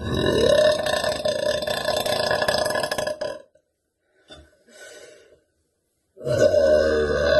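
A young woman's long, deep burps, two of them, each lasting about three seconds. The first rises in pitch at its start and then holds steady. A gap with faint short sounds lies between them, and the second begins near the end.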